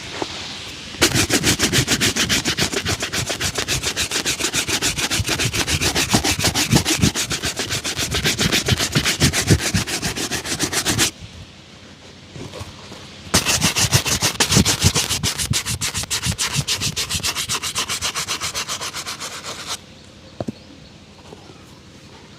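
A leather shoe being buffed by hand with rapid, even back-and-forth strokes, several a second, in two long runs with a short pause between.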